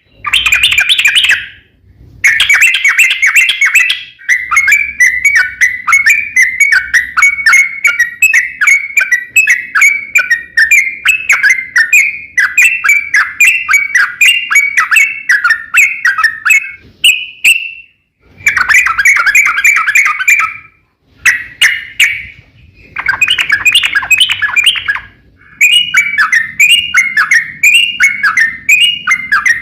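Yellow-vented bulbul (trucukan) singing long, rapid runs of chattering notes, broken by a few brief pauses.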